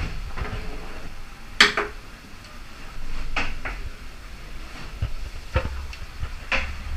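Sharp clinks and knocks of tools and fittings being handled during a repair inside a boat's hull, about half a dozen spread irregularly, the loudest about a second and a half in. A low rumble from the boat runs underneath.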